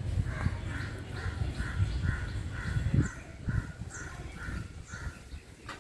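A crow cawing over and over, a long run of evenly spaced calls at about two a second, with a low rumbling noise underneath.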